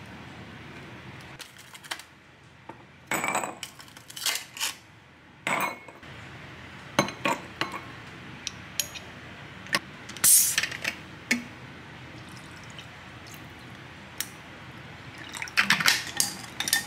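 A drink poured from a glass jar over ice into a glass, among sharp clinks of glass and dishes. The clinks are scattered, the loudest about ten seconds in, with a quick cluster near the end.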